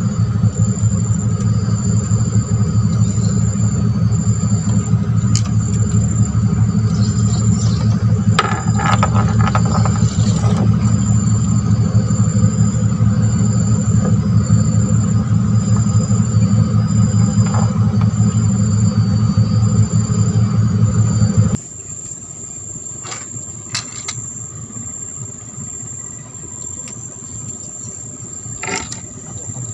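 A small engine runs steadily, then cuts off suddenly about 21 seconds in. Insects keep up a steady high chirping buzz behind it and after it stops.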